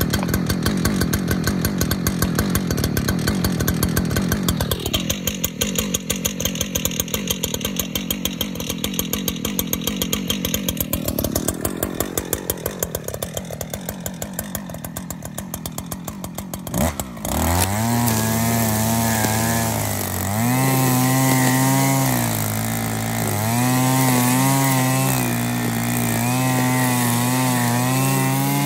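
Husqvarna 545RX two-stroke brushcutter engine idling with a rapid, even pulsing, then revving up about seventeen seconds in and running at high speed while cutting grass, its pitch rising and dipping with the throttle and the load.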